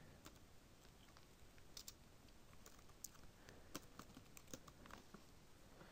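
Faint, irregular keystrokes on a computer keyboard as a short command is typed.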